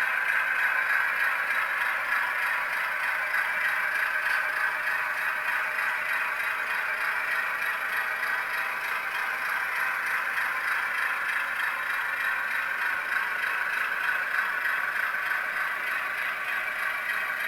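HO-scale Baldwin AS616 model diesel locomotive running steadily along the track. Its Tsunami sound decoder plays diesel engine sound through a small, thin-sounding speaker, mixed with the rattle of the wheels on the rails.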